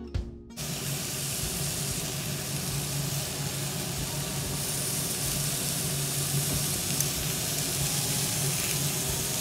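Chicken tikka skewers sizzling on a hot stovetop grill pan: a steady sizzle that comes in about half a second in as music cuts off.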